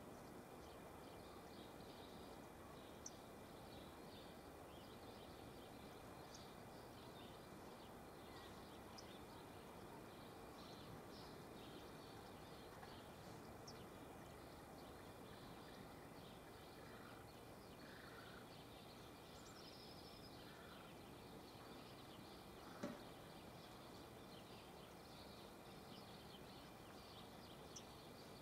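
Near silence: a faint outdoor hush with a few faint, short bird chirps, and one short click about three-quarters of the way through.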